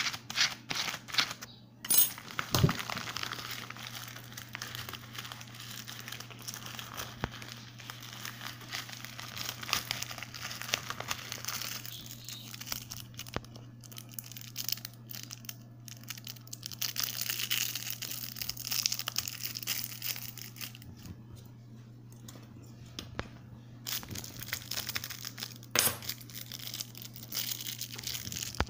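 Plastic packaging crinkling and rustling as it is handled: a padded bubble mailer and the clear plastic wrap around an e-cigarette tank. There are irregular crackles throughout and a couple of sharp snaps, one about two seconds in and one near the end.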